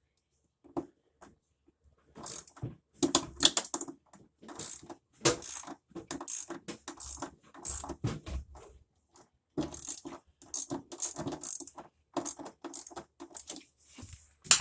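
Hand ratchet wrench clicking in short, uneven runs, mixed with metallic clinks of tools and parts.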